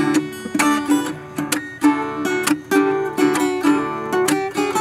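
Acoustic guitar music: plucked notes and strummed chords in a steady rhythm.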